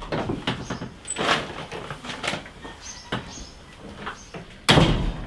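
Glazed front door being closed: handle and latch clicking and rattling several times, then a heavy thud near the end as the door shuts.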